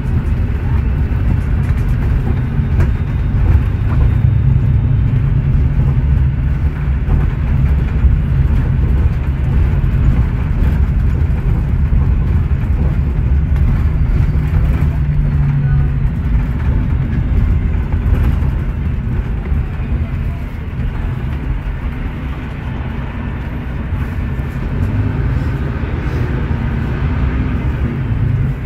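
Mercedes-Benz O500U bus's OM936LA Bluetec6 diesel engine, a straight-six, with its Voith DIWA.6 automatic gearbox, running as the bus drives along, heard inside the passenger cabin as a steady low drone with road rumble. The drone eases off somewhat about twenty seconds in.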